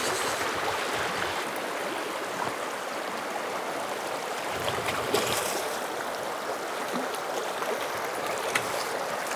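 Steady rushing of river water running over a shallow, rocky riffle.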